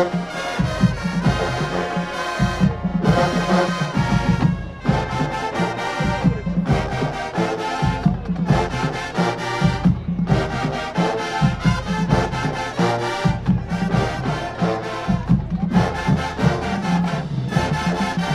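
Marching band playing: brass and drums in short, punchy phrases over a heavy low brass bass line, with brief breaks between phrases.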